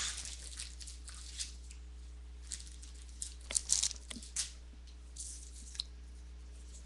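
A trading card being slipped into a thin plastic sleeve: irregular crinkling and rustling of plastic with a few light clicks as it is handled, over a steady low electrical hum.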